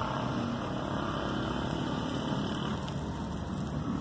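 Steady background noise with a low, engine-like hum running evenly throughout.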